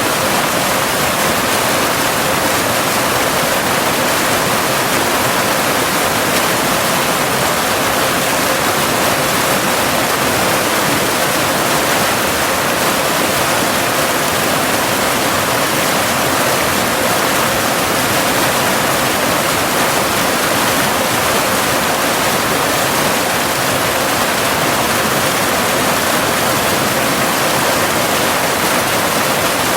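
Steady, unbroken rush of a cascading waterfall, with a faint steady tone near 528 Hz underneath: the binaural delta-wave tone mixed in for relaxation.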